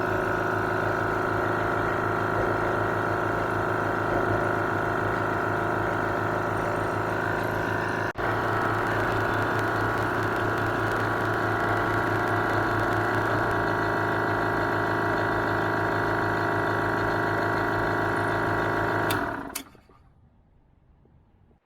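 Restored vintage air compressor running steadily with an even mechanical hum, broken by a momentary dropout about eight seconds in, then switching off and winding down quickly near the end.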